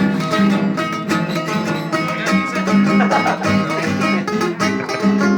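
Acoustic guitar played with a steady rhythm of picked and strummed notes, no singing.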